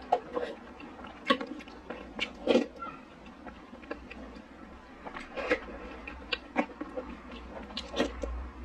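Close-up mouth sounds of a person eating a milky dessert soup from a spoon: short slurps and lip smacks every second or two, with a few sharp clicks.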